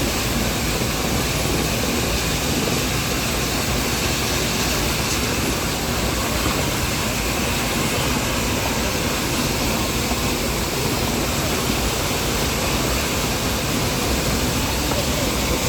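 Steady rushing rumble of the Nilgiri toy train running along the line.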